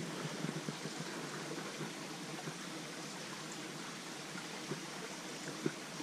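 Small creek's water running steadily, with a few faint ticks.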